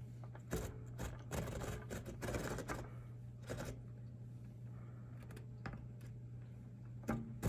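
A small hand saw rasping through the wooden bill of a lure in a few short, irregular strokes during the first few seconds, then only faint scrapes and ticks. A steady low hum runs underneath.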